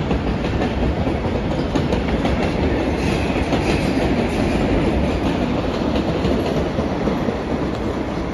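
Locomotive-hauled regional express train passing below, its wheels running over the rails with a steady rumble and clatter.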